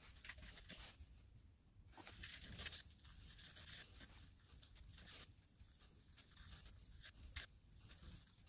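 Faint, irregular scratchy rasping of sandpaper pressed against the inside of a hollowed log spinning on a wood lathe, over a low hum.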